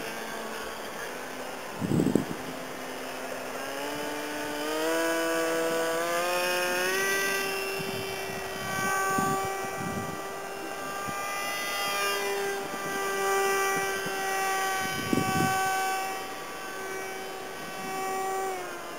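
The motor and propeller of a small homemade foam RC delta-wing plane whining in flight. The pitch climbs over a few seconds, then holds fairly steady with small changes in throttle. A few brief low rumbles come and go.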